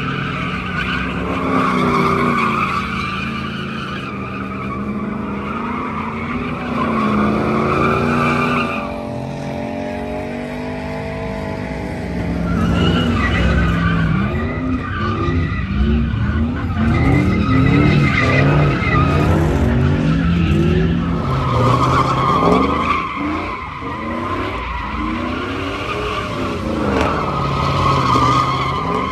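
Pickup trucks doing burnouts and donuts: tyres screeching as they spin on the pavement, with the engines revving up and down. The screech is strongest in the first several seconds and again near the end, and the revving is clearest in between.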